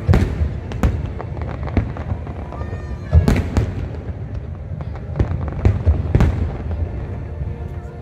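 Aerial fireworks shells bursting one after another, irregular sharp bangs over a continuous low rumble, the loudest bang about three seconds in.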